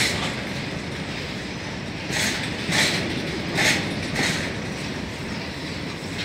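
Covered freight wagons of a goods train rolling steadily past, their wheels clacking over a rail joint in pairs: two sets of double clacks about a second and a half apart, near the middle.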